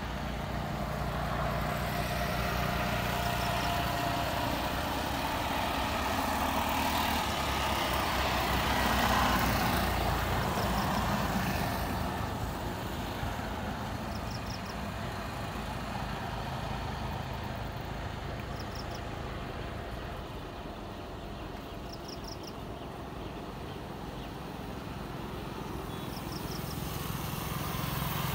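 Boeing 787 Dreamliner's jet engines running as the airliner rolls slowly along the runway after landing: a steady engine rumble that swells for about the first nine seconds, eases off, then grows again near the end.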